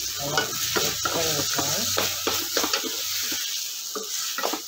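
Wooden spatula stirring and scraping onion-tomato masala as it fries in a stainless steel pot: a steady sizzle broken by repeated scrapes of the spatula against the metal.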